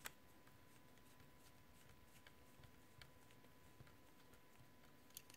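Near silence with a few faint clicks, the sharpest right at the start: a screwdriver working a screw in the metal chassis of a cassette deck mechanism.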